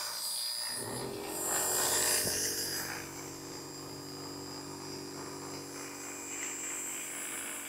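Electric hair clippers humming steadily, starting about a second in, as they are run through short hair. Around two seconds in there is a louder hiss and a single click.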